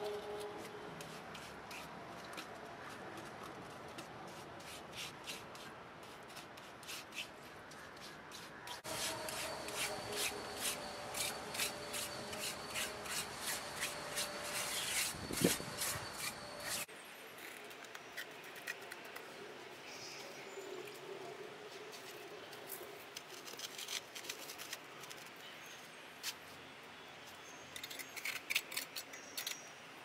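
A small trowel scraping and spreading wet cement mortar, in runs of short, repeated scraping strokes.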